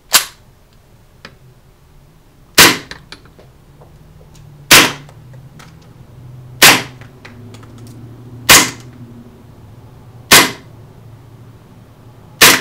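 KWA KZ.61 Skorpion gas blowback airsoft submachine gun, running on green gas, firing single semi-auto shots: seven sharp reports, about one every two seconds.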